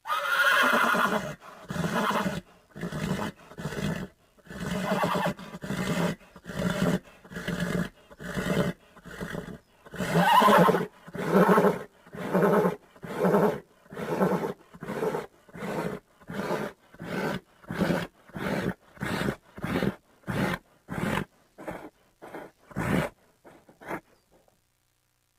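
Horse giving a long run of loud, rhythmic, breathy vocal sounds, one after another at about one and a half a second. The sounds become shorter and quicker toward the end and stop shortly before it.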